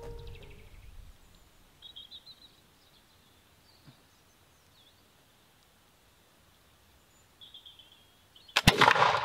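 A flintlock musket fires once near the end: a sudden, sharp, loud black-powder report that rings on briefly. Before it the field is quiet apart from a few short chirps.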